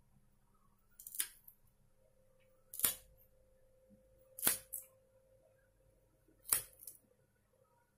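Kitchen knife slicing a raw carrot into rounds on a bare hard tabletop: four crisp cuts, each a sharp snap of the blade through the carrot onto the table, spaced about a second and a half to two seconds apart, the last two each followed by a smaller second click.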